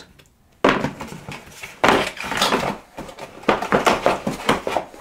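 Cardboard boxes and packaged fireworks being handled inside a large cardboard shipping carton: rustling, scraping and light knocks, starting about half a second in.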